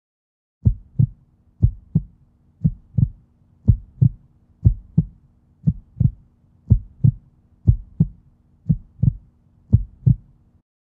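Heartbeat sound effect: paired low lub-dub thumps at about one beat a second, over a faint steady hum. It stops shortly before the end.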